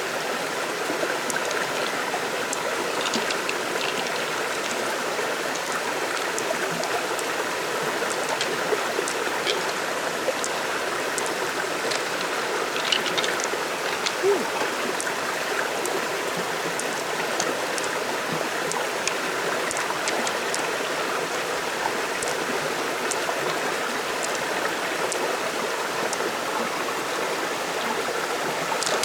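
Steady rush of flowing stream water, with scattered short clicks over it.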